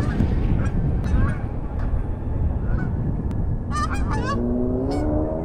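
Waterfowl honking in short calls, scattered at first and then in a quick run about four seconds in, over a steady low rumble. A low hum rises slowly in pitch near the end.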